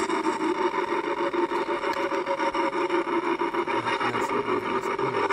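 Homemade electric model helicopter with wood-clad rotor blades running, its motor spinning the main rotor in a steady whirr with a fast, even chop. The rotor is pushing a strong draught of air, but the machine is unfinished and not yet flying.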